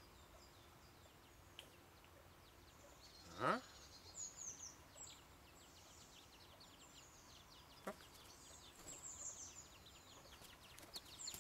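Quiet garden ambience with faint, rapid high-pitched chirping of birds. About three and a half seconds in there is one short call that falls steeply in pitch, and near eight seconds a single short tap.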